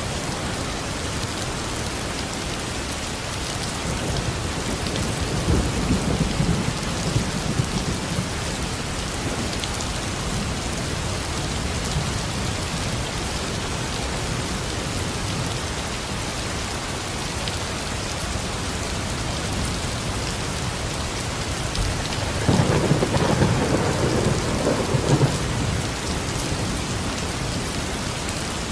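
Steady rain with thunder rumbling twice: a low rumble about five seconds in and a louder, crackling one about twenty-two seconds in that lasts about three seconds.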